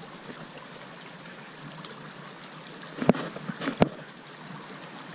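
Steady rushing and trickling of a small stream, with a few sharp clicks about three seconds in.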